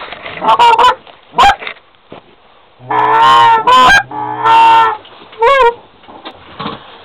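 Loud goose honking: a run of short, pitch-breaking honks and clucks, with a few longer drawn-out honks about three to five seconds in.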